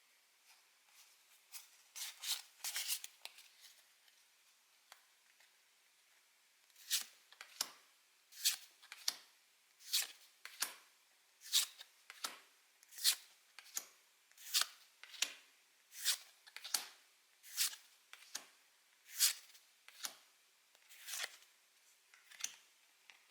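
A Pokémon trading-card booster pack's foil wrapper rustles and tears open briefly near the start. Then the cards are flipped through one at a time, each giving a short, sharp papery snap, a little more than one a second.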